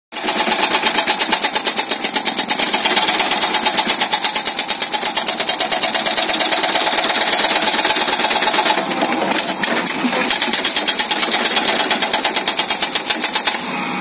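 Soosan SB43 hydraulic breaker on a backhoe hammering its chisel into the ground in rapid, even blows, about ten a second. The hammering stops for about a second near nine seconds in, starts again, and stops shortly before the end.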